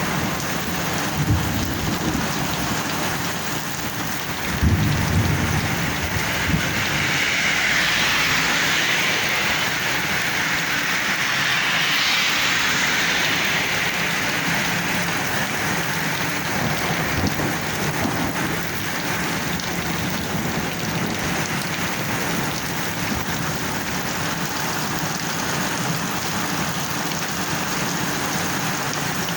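Heavy rain pouring steadily, swelling to its heaviest about a third of the way in, with a low rumble about five seconds in.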